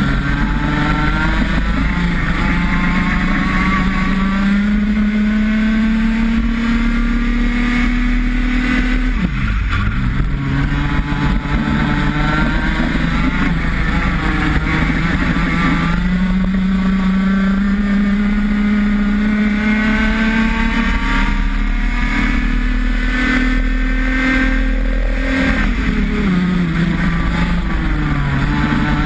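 IAME X30 125cc two-stroke kart engine at racing speed, heard from on board the kart. Its pitch climbs steadily along the straights, and the revs fall sharply twice as the kart slows for corners, about nine seconds in and again about twenty-five seconds in.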